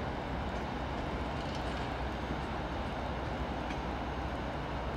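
Electric passenger trains moving slowly through a station: a steady low rumble and hum, with no distinct wheel clatter or squeal.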